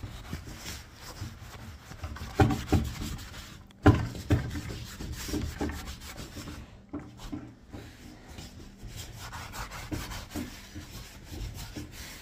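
A damp cloth wiping sanding dust off a freshly sanded wooden tabletop in quick, uneven rubbing strokes, with two sharp knocks against the wood within the first four seconds.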